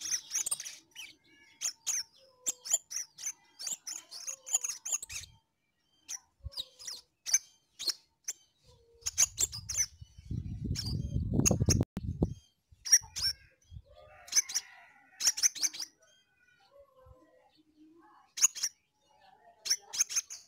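Caged crimson sunbird singing: a busy run of sharp, high chirps and quick trills, pausing briefly after about five seconds. About ten seconds in a low rumble lasts some two seconds.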